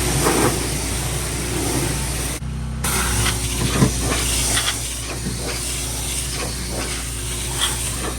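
Pressure washer spraying: a steady loud hiss of the water jet over a steady low hum, breaking off briefly about two and a half seconds in before resuming.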